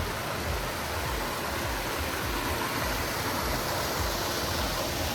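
Water fountain splashing steadily, really loud, a constant rushing hiss of falling water.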